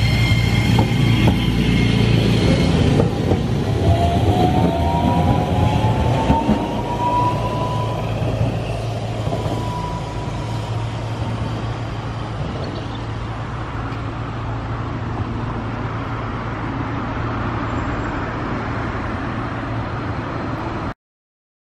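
Hankai Tramway 1101-series low-floor tram running on street track, a steady low rumble with a motor whine that rises in pitch from about four seconds in. The sound cuts off suddenly near the end.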